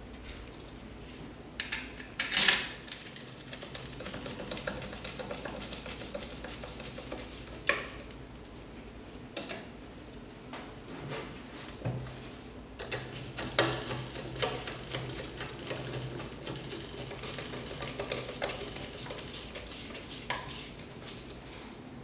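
Screwdriver driving screws back into the metal housing of a Genteq X13 ECM blower motor, with scattered metallic clicks, scrapes and a few louder knocks as the motor is handled.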